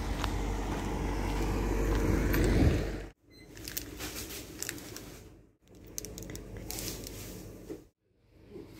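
Street sound of a car driving past, with wind rumble on the microphone, growing louder until it cuts off abruptly about three seconds in. Then quieter shop-aisle sound with light clicks and packaging handling, broken twice by brief silences at edit cuts.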